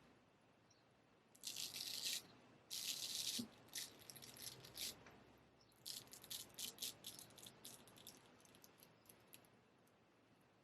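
Straight razor scraping through beard stubble: two longer strokes, then a run of short, quick strokes that thin out near the end.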